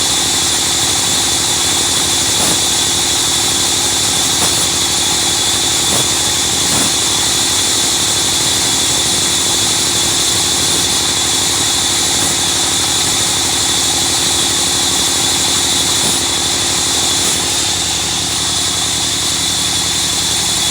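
Sawmill wood-cutting machine running steadily: a machine hum under a loud, even hiss, with a few faint knocks. The hum shifts slightly near the end.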